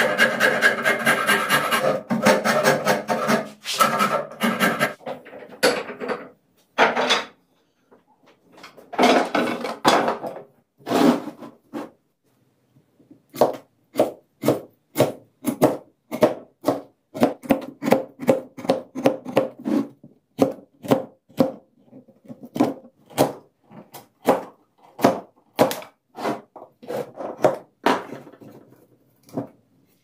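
Fast back-and-forth strokes of a hand tool rasping or sawing on wood clamped in a vise, then a few separate strokes. After that, a short blade cuts chips from a round log slice in steady strokes about twice a second.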